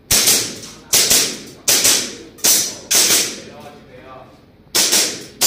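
Airsoft pistol shots fired in quick pairs, about ten sharp cracks in all, each trailing off in a short ring, with a pause just before the last two.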